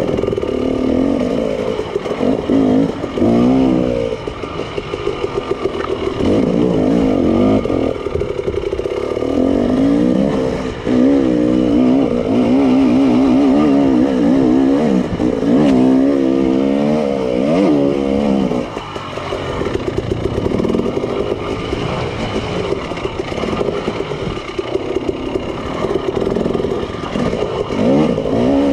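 KTM 300 TPI two-stroke dirt bike engine revving up and down on singletrack, the throttle rising and falling in quick swells, with rattling from the bike over the rough trail.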